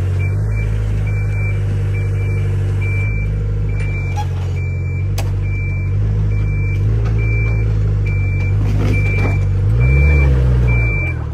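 Heavy machine's engine running steadily while its backup alarm beeps about one and a half times a second; the engine revs up briefly near the end.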